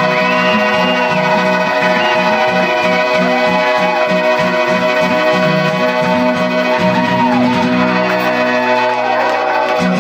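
Live folk-rock band playing an instrumental passage: a piano accordion holds chords under a harmonica playing a bending melody line, with strummed acoustic guitars keeping a steady rhythm.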